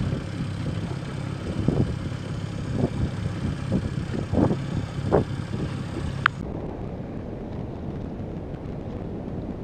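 Fishing boat's motor running steadily under wind gusting on the microphone. About six seconds in the sound cuts abruptly, after a short click, to a quieter, duller hiss of wind and water.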